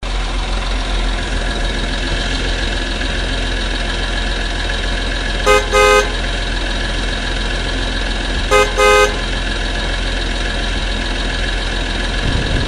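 Vehicle engine running steadily, with a horn honking twice about three seconds apart, each honk a short toot followed by a slightly longer one.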